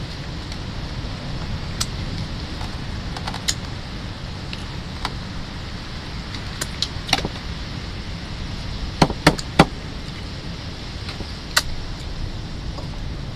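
Sharp clicks and clinks of spiny sea urchin shells being broken open and handled, including three quick clicks about two-thirds of the way through, over a steady low background rumble.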